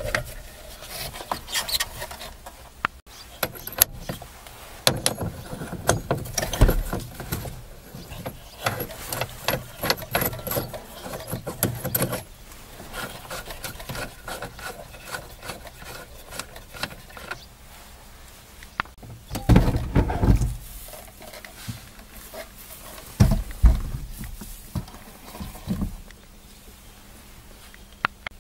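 Handling noise from a Volkswagen steering wheel being dismantled: the horn pad and then the wheel are worked off the column, giving irregular plastic clicks, knocks and the clatter of a socket tool. There are louder flurries of knocking about twenty seconds in and again a few seconds later. The job is to reach the horn's contact ring, which is worn so that the horn fails at some wheel positions.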